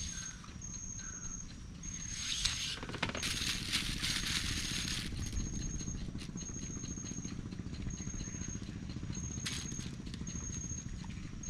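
A high-pitched insect call repeating in short pulses about once a second, over a low steady rumble of outdoor ambience. A burst of rustling handling noise comes a couple of seconds in and lasts about three seconds.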